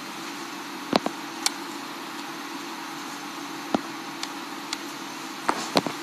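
Steady background hum and hiss, with a scattering of sharp, short clicks and taps, the loudest about a second in and a cluster near the end.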